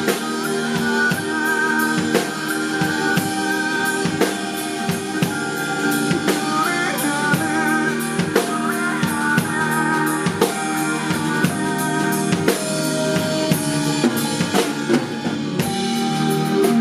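A live band playing an instrumental passage without vocals: a drum kit with snare and bass drum keeping a steady beat under a wavering melodic line.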